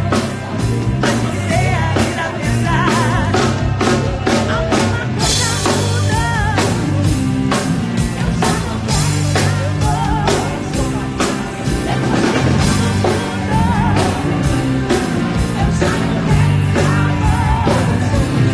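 Live pop-rock band playing a song at a soundcheck: drum kit keeping a steady beat under bass, guitar and keyboard, with a voice singing over it.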